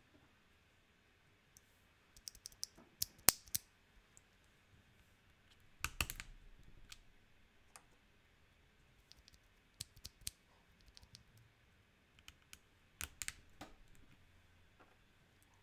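Keystrokes on a mechanical keyboard with JWK Dogikon linear switches in a KBDFans D65 gasket-mount board with PBT keycaps. Short bursts of key presses come in irregular groups, with quiet pauses between them.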